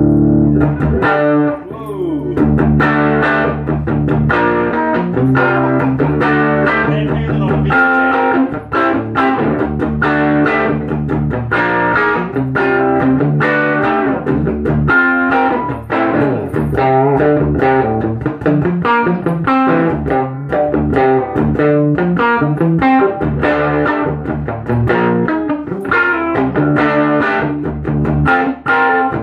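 Gibson Les Paul electric guitar played through a Blackstar ID Core amp: a continuous run of quickly picked single notes and chords.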